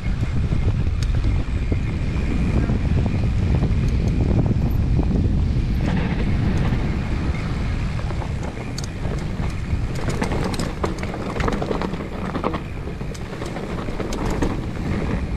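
Wind rushing over the microphone of a mountain biker's GoPro while riding, with the bike rattling and knocking over rough trail. The knocks come thicker from about six seconds in.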